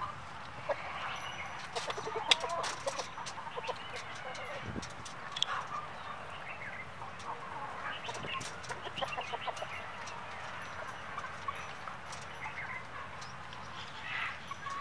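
A flock of Australorp hens clucking, with many short calls overlapping and scattered sharp ticks among them.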